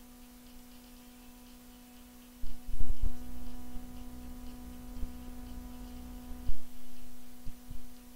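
Steady electrical hum. About two and a half seconds in, low thumps and knocks begin, close to the microphone, and a few more come near the end.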